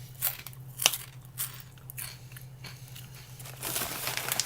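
Crunchy microwaved pork rinds being bitten and chewed: a few separate sharp crunches, then denser, faster crunching near the end.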